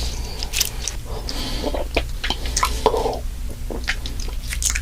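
Human stomach gurgling close up: irregular wet squelches and small clicks, with one rounded gurgle about three seconds in, over a steady low hum.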